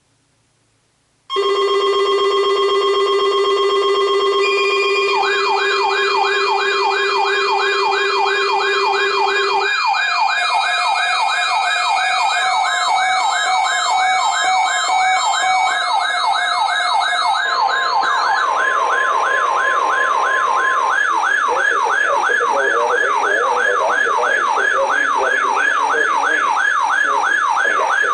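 Several NOAA weather radio alert alarms going off together on receiving the weekly test, starting suddenly about a second in. Steady electronic tones are joined by warbling siren tones sweeping rapidly up and down, more layers entering and some dropping out as it goes on.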